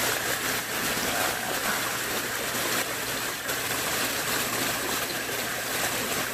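Steady rushing of water from a nearby waterfall.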